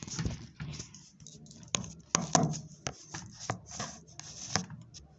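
Close handling sounds: an irregular run of light clicks and taps with rubbing between them, the loudest cluster about halfway through.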